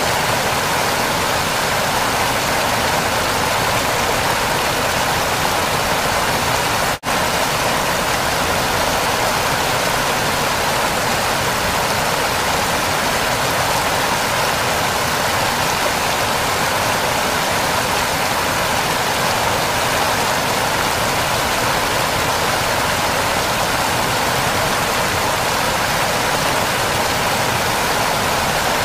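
Waterfall rushing, a steady, even roar of falling water, with a momentary dropout about seven seconds in.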